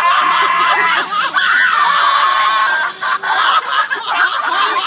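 A group of children shrieking and laughing together, high wavering voices overlapping without a break, in excitement at just having been covered in slime.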